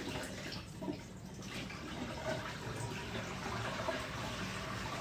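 Water running in a steady, even rush.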